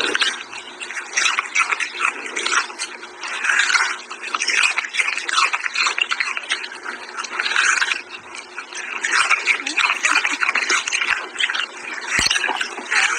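Dog chewing and gnawing on a carrot held in its paws: a continuous run of wet crunching and scraping that swells and fades every second or so.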